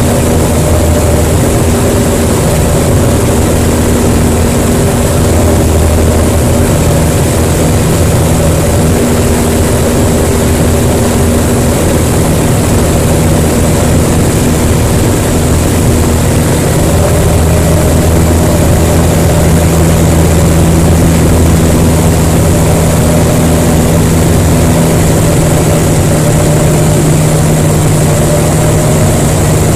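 Piston engine and propeller of a Jabiru LSA-55 light aircraft running at cruise power in flight, heard inside the cockpit as a loud, steady drone with rushing air noise. The engine tone shifts slightly about halfway through.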